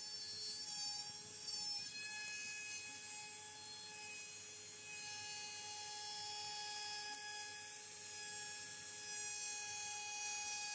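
CNC router spindle running at high speed: a steady high-pitched whine with a hiss above it, its pitch shifting slightly about two seconds in.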